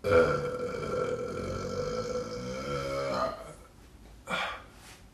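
A woman's long burp lasting about three seconds, starting suddenly and wavering in pitch near its end.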